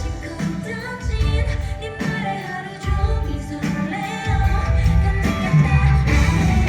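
Live pop-rock band playing, with female vocals, guitars, bass and drums. The low end thins out twice, briefly about a second in and again from about two to three seconds in, before the full band comes back.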